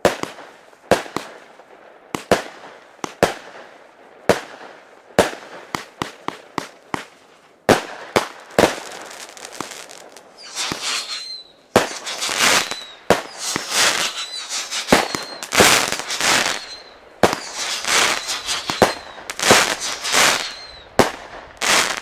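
Black Ice fan-shaped firework cake (battery) firing: sharp single shots about once a second at first, then from about ten seconds in longer, denser bursts following one another closely, several with a faint falling whistle.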